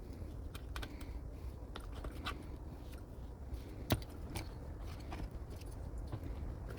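Scattered small clicks and light taps of hands and tools working on an Arrma Senton RC truck's spur gear, which has just been refitted with a slightly tight mesh. One sharper click comes about four seconds in, over a faint low hum.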